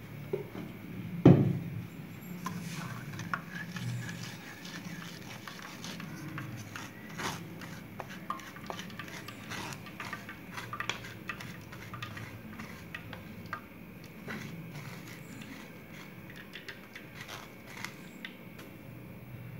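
A wooden spatula scraping and pressing pulp in a plastic mesh strainer over a steel bowl, with many small irregular scrapes and clicks. One sharp knock about a second in is the loudest sound.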